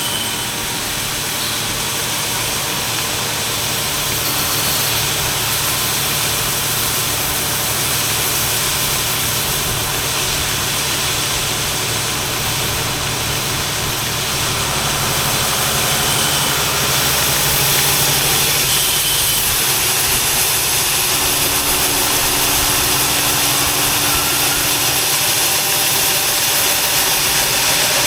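Tractor engine running steadily under load, driving a grain cart's unloading auger as shelled corn pours out into a truck.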